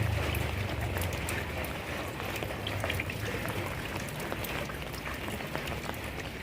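Steady rain falling, with many small drops ticking sharply on nearby surfaces. A low hum underneath fades out in the first second or so.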